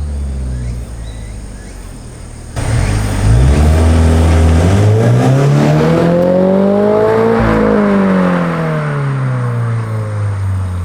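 Toyota GR86's 2.4-litre flat-four through a Fujitsubo AR-M aftermarket exhaust. The revs sink at first, then about two and a half seconds in it gets suddenly louder and the revs climb steadily for about five seconds before dropping away as the throttle is released.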